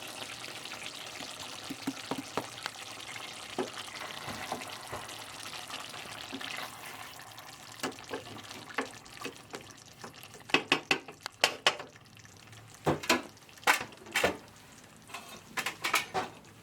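Chicken wet fry sizzling softly in the pan, the hiss slowly dying away with the heat off. From about eight seconds in, a run of sharp clinks and knocks of utensils on the pan, loudest near the end.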